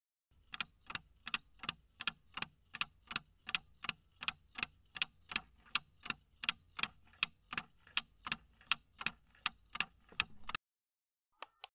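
Clock-style ticking sound effect of a quiz countdown timer, even ticks about three a second, stopping suddenly about a second before the end, followed by two short clicks.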